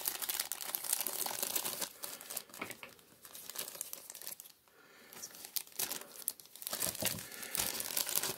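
Small clear plastic bag crinkling as it is handled and opened by hand, with a quieter stretch in the middle.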